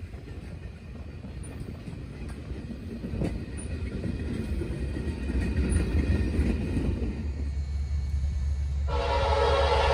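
Freight tank cars rolling past on the rails with an occasional clank, the sound fading as the last car goes by. About nine seconds in, an approaching locomotive starts sounding its horn, a loud held chord.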